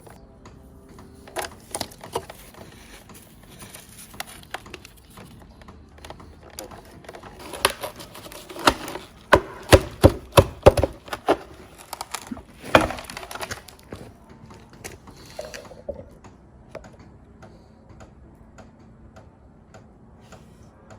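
Scattered clicks and knocks of hard objects being handled, with a quick run of them about eight to eleven seconds in and a sharp knock near thirteen seconds.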